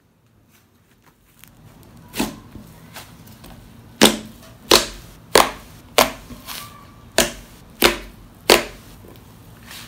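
Thick frost slime (made with instant snow) popping sharply as fingers press and poke into it, forcing out trapped air: one snap about two seconds in, then a run of seven loud pops about two thirds of a second apart.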